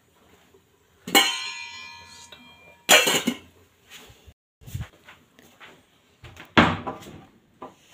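Aluminium cookware clanging about a second in, with a bright metallic ring that dies away over a second or so. A few louder knocks and rustles follow, the loudest near the start and again near the end.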